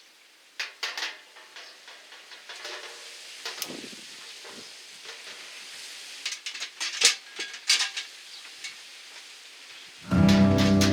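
Food sizzling on a grill over a fire pit: a steady hiss broken by scattered sharp clicks and clinks of metal, loudest around the middle. Guitar music starts near the end.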